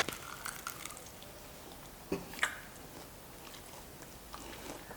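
A person chewing roasted chicken dipped in honey, close to the microphone. There is a sharp click right at the start, then two short wet mouth smacks about two seconds in and faint chewing sounds in between.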